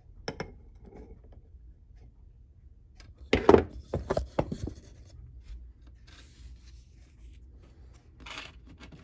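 Pliers and a small coin being handled: a light tap near the start, then a cluster of sharp metallic knocks and clinks about three and a half seconds in, followed by soft rubbing.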